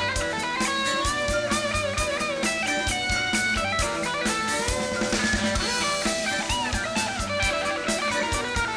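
Live rock band playing an instrumental passage: guitars and drum kit with a steady beat, under a lead melody that slides and bends between notes.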